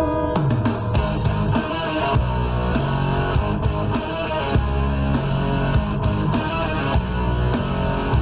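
Rock music with strummed electric guitar and no singing. It changes about a third of a second in, from held tones to a sliding bass note and a steady beat.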